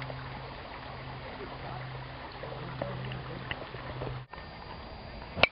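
Shallow creek running over rocks, a steady rushing hiss, with a low steady hum underneath that breaks off now and then. A sharp click sounds just before the end.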